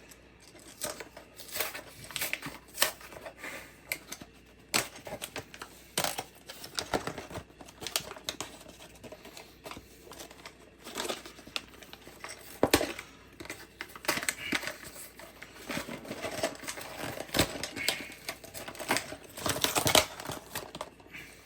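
Toy packaging being opened and handled: cardboard box and plastic bags crinkling and tearing, with many irregular small clicks and rattles of loose plastic parts.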